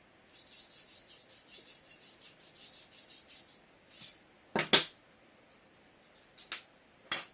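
Diamond resin sharpening stone on a Lansky guided sharpener being stroked along a knife edge: quick short rasping strokes, about four a second, for about three seconds. A few sharp knocks of hard parts follow, the loudest about four and a half seconds in.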